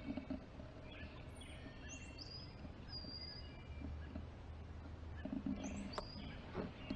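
Wild songbirds chirping and singing in short high whistled phrases, some notes sliding up or down, over a low steady background hum. A few soft knocks and rustles come late on as the camera is moved.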